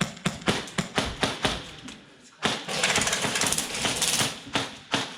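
Airsoft guns firing: quick shots about five a second, then a sustained full-auto burst from about halfway through, followed by more single shots.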